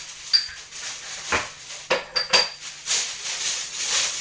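Glass cup lids being handled, clinking together in several sharp knocks with a brief high ring, followed by a stretch of rustling as they are unpacked.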